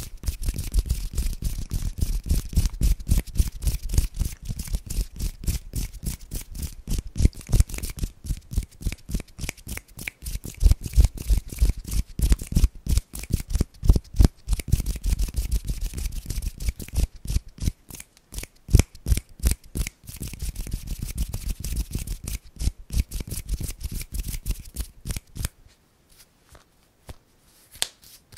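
Close-miked ASMR hand sounds: fingers and palms fluttering and rubbing together in a fast, dense stream of dry crackles and clicks, with low rumbles underneath. Thins to a few scattered clicks near the end.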